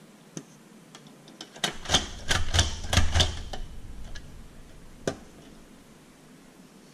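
A quick run of sharp clicks and knocks, about eight in two seconds, from a stainless-steel utensil being handled on paper over a wooden tabletop. About five seconds in comes a single knock as it is set down on the table.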